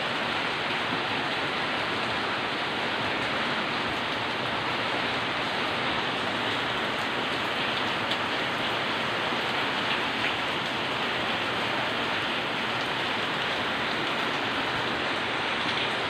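Monsoon rain falling steadily: an even hiss of rain, with a few slightly louder drops now and then.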